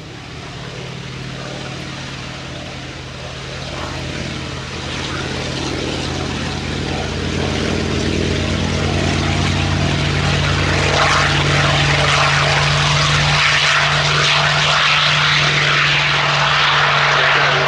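Hawker Fury's Bristol Centaurus 18-cylinder sleeve-valve radial engine and propeller at take-off power on the take-off run, a steady deep drone growing louder, with a rushing noise swelling from about ten seconds in.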